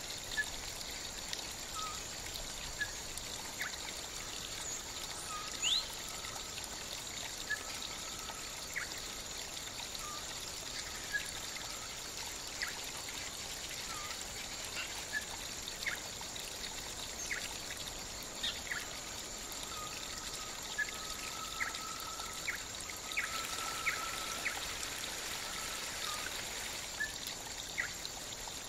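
Shallow water trickling steadily, with short bird chirps scattered throughout.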